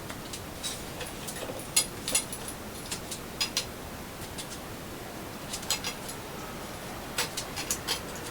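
Irregular light clicks and taps of small hardware and hand tools being handled during assembly work, a dozen or so, over a steady hiss.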